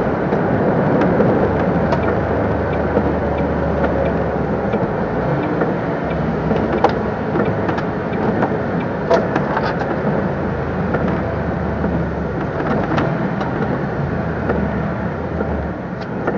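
Cab noise of a MAN TGS 26.320 lorry on the move: the diesel engine's steady low drone with tyre noise on the wet road, and light clicks and rattles now and then.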